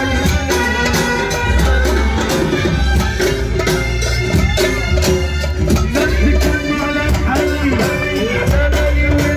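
Loud amplified Tunisian folk wedding music: a steady drum beat with heavy bass under a melody line.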